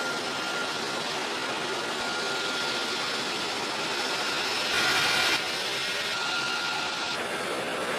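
Jet aircraft engines running: a steady noise with a thin high whine, changing abruptly at several cuts and louder for about half a second near the middle.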